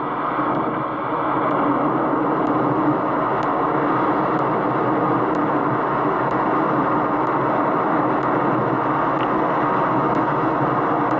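Hurricane wind blowing hard and steadily, with faint light ticks about once a second.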